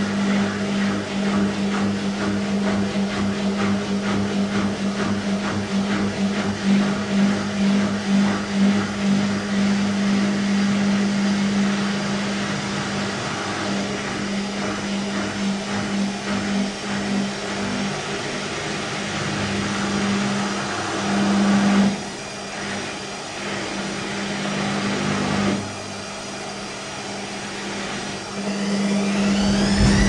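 Whirlpool front-loading washing machine running with a steady hum. Near the end a motor whine rises in pitch as the drum speeds up. This machine has a fault that keeps it from spinning.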